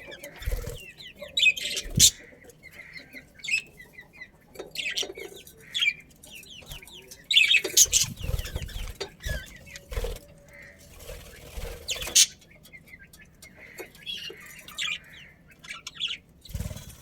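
Budgerigars chirping in quick, scattered bursts of short notes, with several sharp knocks in between.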